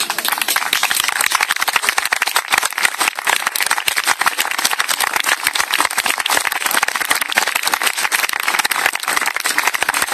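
Crowd applauding: many hands clapping, starting suddenly and keeping up steadily.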